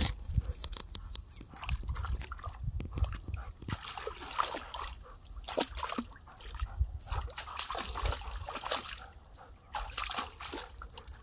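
A Weimaraner wading in shallow lake water, splashing and sloshing as it dips its head and snaps at the surface, with irregular splashes throughout.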